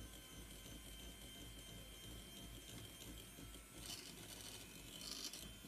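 Electric hand mixer running faintly, its beaters whipping a creamy cream-cheese and butter batter in a bowl, with two short hissing scrapes about four and five seconds in.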